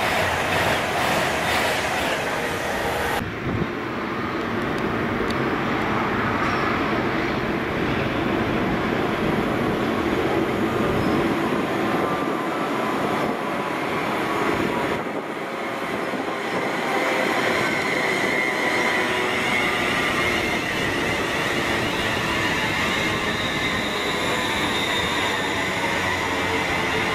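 Electric trains running along a station platform: a Class 390 Pendolino moving past, then a Class 350 Desiro electric multiple unit running in and passing close, with steady wheel-on-rail noise. In the second half a high whine builds toward the end.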